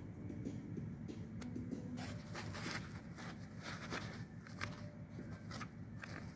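Rustling, scraping and light clicks as an LED headlight bulb is handled and pulled out of its foam packaging insert. The clicks come thick from about two seconds in, over a low steady background hum.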